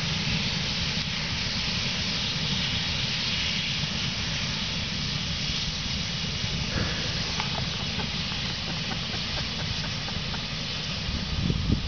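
Steady hiss of propane jetting from a propane tank punctured by a rifle bullet, over an unsteady low rumble.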